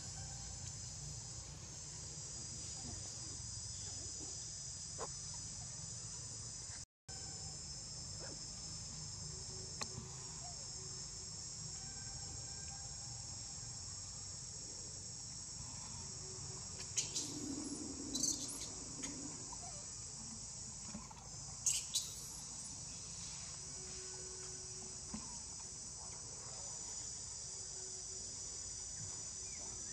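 Steady high-pitched shrill of a chorus of insects, several tones held together without a break. The sound cuts out for an instant about seven seconds in, and a few faint clicks come in the second half.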